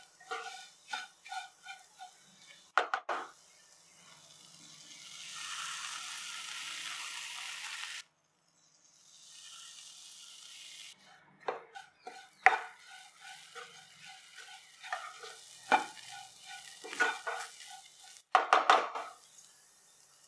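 Spatula scraping and stirring cauliflower frying in a nonstick kadai, in short strokes with a squeaky ring. In the middle stretch a steady sizzle of oil rises and then cuts off suddenly. Later come more scraping strokes with a few sharp knocks of the spatula on the pan.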